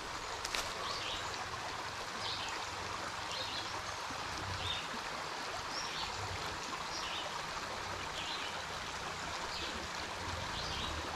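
Small spring creek flowing steadily over gravel and logs, a constant gentle trickling rush of water.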